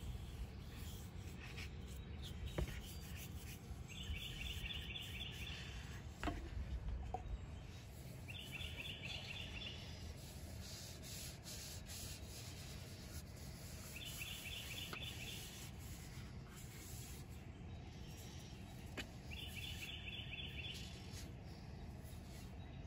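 Cloth and brush rubbing linseed oil over a hatchet's wooden handle and steel head, with a few small handling clicks. A bird repeats a short, high, rapid trill about every five seconds.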